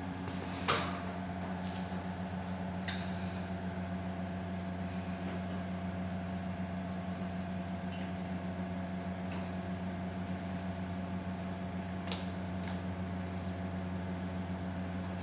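Steady mechanical hum with a few faint clicks on top, the sharpest just under a second in.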